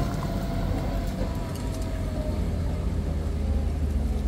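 Truck engine running steadily.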